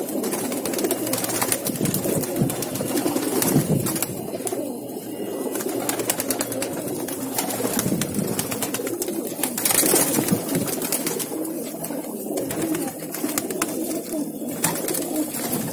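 A crowded flock of domestic pigeons cooing together in a continuous low murmur, with frequent sharp flutters and claps of wings as birds flap and jostle in the pen.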